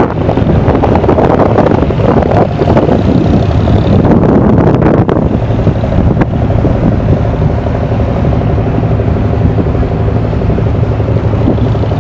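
Boat engine running with a steady drone, heard from on board, with wind buffeting the microphone, heaviest in the first few seconds.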